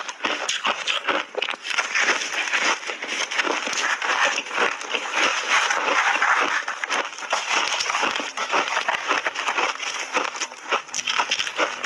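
Close-up crunching of frozen layered ice made with matcha tea and milk powder as it is bitten and chewed: a dense, unbroken run of crackling crunches.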